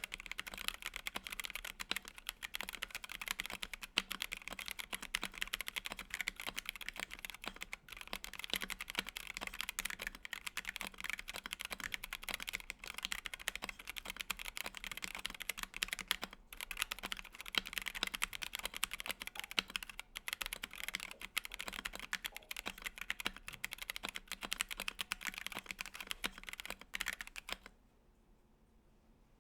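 Fast continuous typing on a mechanical keyboard fitted with stock Akko Dusk Panda linear switches, a polycarbonate plate and ASA-profile keycaps, stopping about two seconds before the end.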